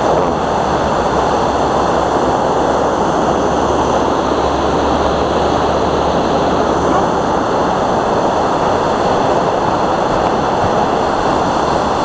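Loud, steady rushing of a waterfall on a fast mountain stream, its flow high with snowmelt water.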